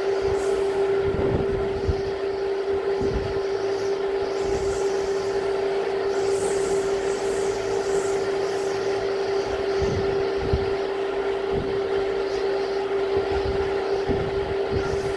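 Typhoon winds gusting and buffeting the microphone in irregular low thumps, over a continuous steady hum and an even rushing noise.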